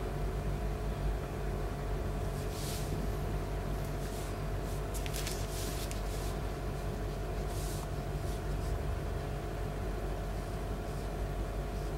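Steady low hum in the room, with a few short, soft swishes of an ink brush stroking paper from about two and a half to nine seconds in.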